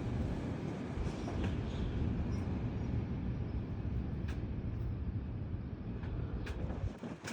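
Gusty thunderstorm wind blowing hard, a continuous low rumble as it buffets the microphone through an open window, with a couple of faint sharp ticks.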